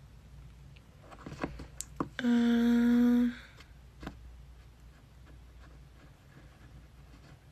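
A woman's short closed-mouth hum, one steady "mmm" held for about a second, a couple of seconds in. It comes after a few faint clicks and taps.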